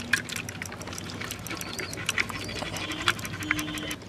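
Thick mutton curry slopping and splattering as it is poured from a clay pot onto a clay plate: a quick, irregular run of wet plops and splats.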